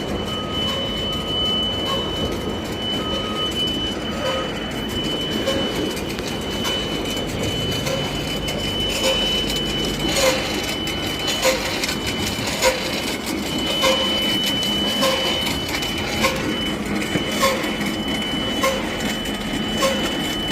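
Tower crane machinery running with a steady mechanical noise and a thin, high, steady squeal, with regular clicking about once a second that grows more distinct about halfway through.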